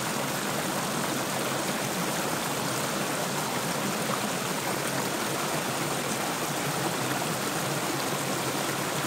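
Creek water flowing steadily over a low rock ledge in small cascades.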